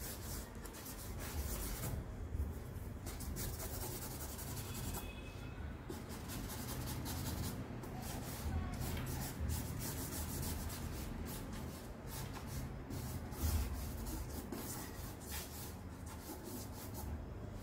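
Charcoal stick scratching and rubbing across drawing paper in quick, repeated hatching and shading strokes.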